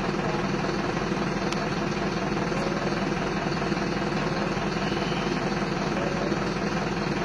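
A vehicle engine idling steadily at an even level.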